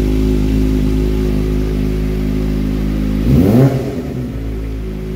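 Kawasaki ZX25R's 250 cc inline-four engine idling through an Akrapovic carbon slip-on exhaust, then blipped once about three seconds in, the revs rising sharply and dropping back to idle.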